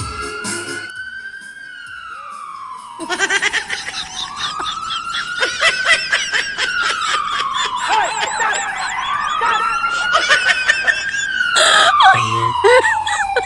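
Siren wailing, its pitch slowly rising and falling about once every four to five seconds. From about three seconds in, laughter runs over it.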